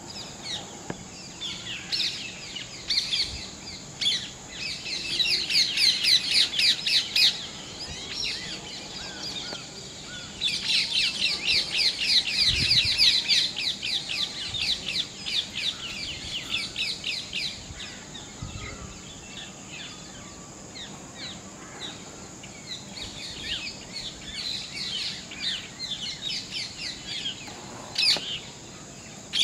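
Birds chirping in long runs of rapid, high-pitched notes, three stretches of several seconds each, over a steady faint high whine.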